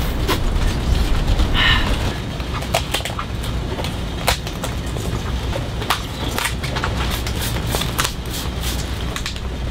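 King crab shell being cracked and pulled apart by hand: irregular sharp cracks and clicks, a dozen or more spread through, over a steady low rumble.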